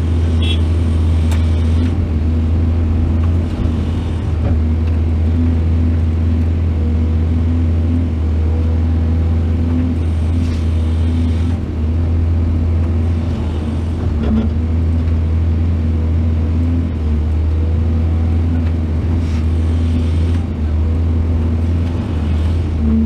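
Diesel engine of heavy earth-moving machinery running steadily with a deep hum, with a few brief swells of higher hiss.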